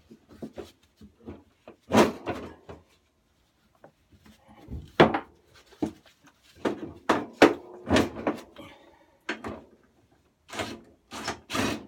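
Irregular knocks, clunks and clatters of lawnmower parts being handled and set down during dismantling, with a few louder knocks about two, five and eight seconds in.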